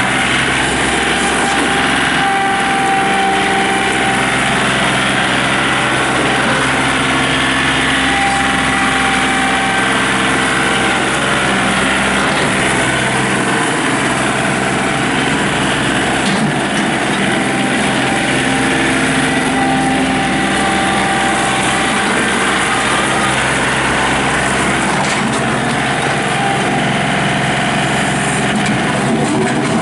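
John Deere 2032R compact tractor's three-cylinder diesel engine running steadily.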